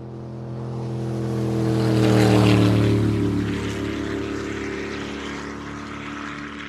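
An engine passes by, swelling to a peak about two and a half seconds in as its pitch drops, then fading away.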